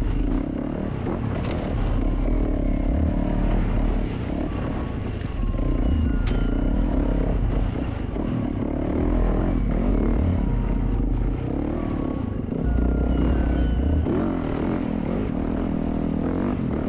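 Yamaha YZ450F four-stroke dirt bike engine revving up and down as the bike is ridden along a tight trail, the throttle opening and closing every couple of seconds.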